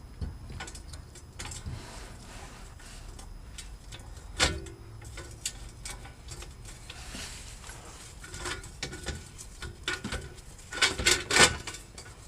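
Scattered metallic clinks and knocks as a new front wheel hub bearing assembly is worked into the steering knuckle by hand, with one sharp knock about four seconds in and a quick run of louder clinks near the end.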